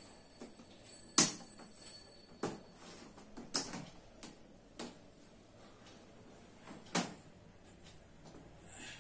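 Sharp plastic clicks and snaps as the front bezel of an LED TV is prised off the display panel by hand, its clips letting go one by one. The loudest snap comes about a second in, with others at irregular intervals and another strong one about seven seconds in.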